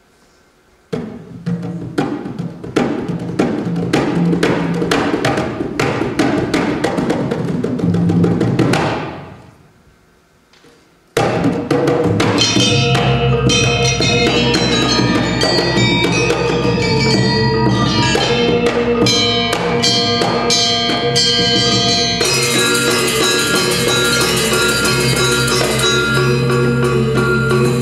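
Balinese gamelan ensemble playing: after a moment of quiet, a fast run of rapid percussive strokes builds and then fades out. After a short pause, the full ensemble of bronze metallophones, gongs and drums comes in with ringing, sustained tones that get brighter about two-thirds of the way through.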